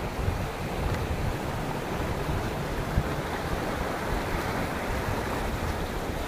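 Shallow rocky river rushing over stones in a steady wash, with wind buffeting the phone's microphone and a brief thump about three seconds in.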